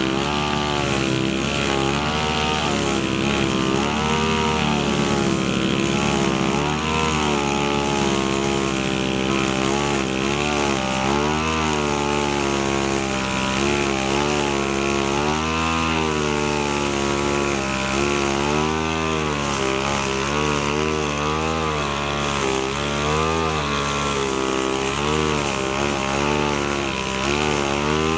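Two-stroke petrol brush cutter running at working speed, its buzzing pitch dipping and rising every second or so as the cutting head is swung through the grass.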